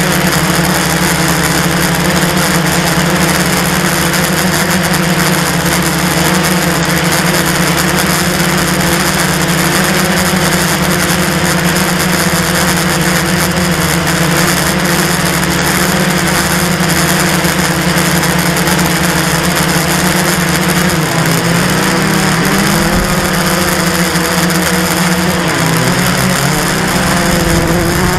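Blade 350 QX quadcopter's electric motors and propellers buzzing steadily, heard up close from the camera mounted on the airframe. About two-thirds of the way through, the pitch begins to waver up and down as the drone manoeuvres.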